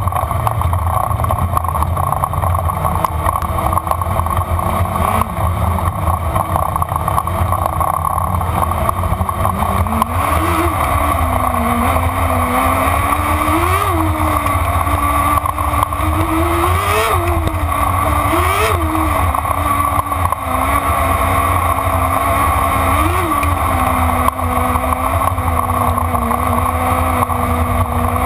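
Open-wheel dirt-track race car's engine running at racing speed, heard onboard with heavy rumble and wind on the camera; its pitch swells briefly about five times in the second half, then settles.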